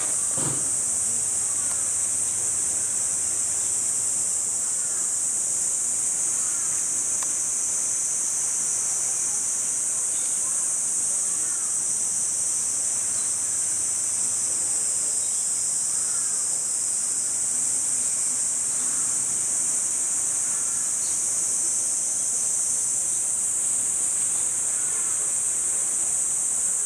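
Cicadas buzzing in a steady high-pitched summer chorus that holds unbroken throughout.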